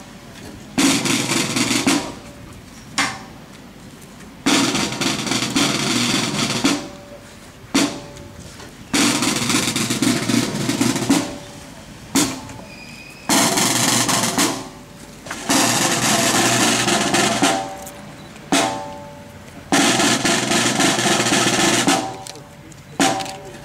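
Marching-band snare drum playing a series of rolls about two seconds long, each starting on a sharp accent and fading out, with a single stroke between rolls. This is the solemn drum roll played during the laying of wreaths.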